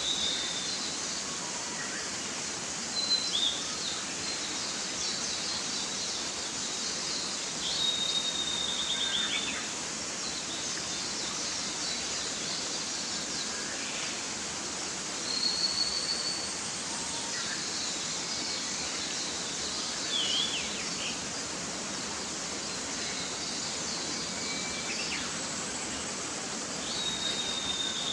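Mountain stream running steadily, with birds calling over it every few seconds: short high calls and a few brief trills, about five in all.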